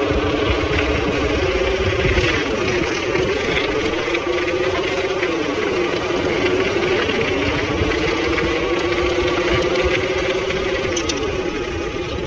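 Radio-controlled semi truck running, a steady engine-like drone that dips and comes back up in pitch about four times.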